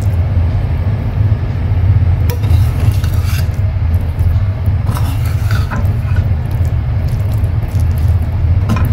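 Perforated steel spatula scraping and clinking now and then against a steel pan while stirring cooked rice into tomato thokku. A steady low rumble runs underneath and is the loudest sound.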